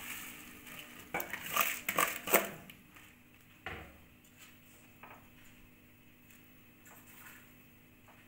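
Washed rice poured from a plastic colander into a wok of broth: a rushing, rattling pour of grains for the first two seconds or so, then a single knock, then a few light spatula taps on the pan.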